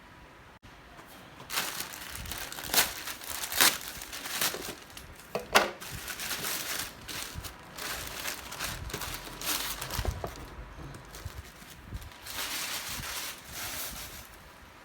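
Packaging being handled and opened: irregular crinkling and rustling of wrapping with sharp crackles, starting about a second and a half in and going on in uneven spurts.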